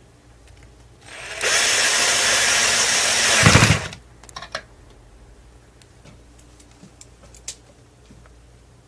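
Cordless drill spinning up and running for about two and a half seconds, with a heavier low knock just before it stops. A few light clicks of metal brackets being handled follow.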